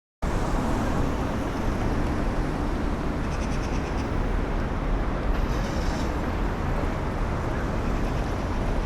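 Busy city street ambience: a steady wash of traffic noise, heaviest in the low rumble, starting abruptly just after the start.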